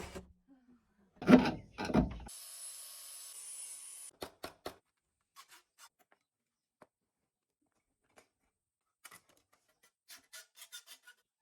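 Two heavy knocks about a second apart, then a hiss lasting about two seconds, followed by scattered light clicks and taps of timber and tools being handled during vanity building work.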